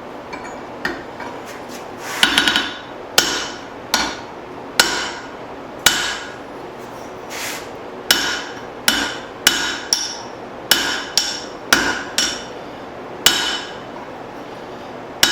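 A blacksmith's hand hammer strikes steel at the anvil about fifteen times at an uneven pace, each blow ringing metallically. The blows drive a drift into the punched eye of a hot cross peen hammer head, stretching the eye open.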